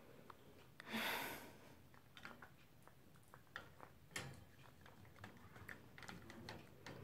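Faint, irregular crunching clicks of a poodle chewing a hard dental chew, with a short rustle about a second in.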